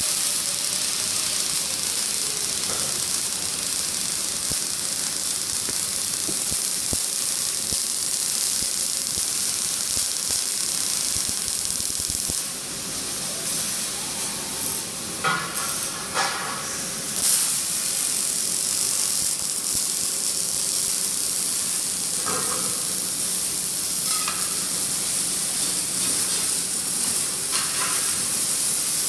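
Robotic wire-fed (MIG) welding arc crackling and sizzling steadily. It breaks off briefly about halfway through, with a few short knocks.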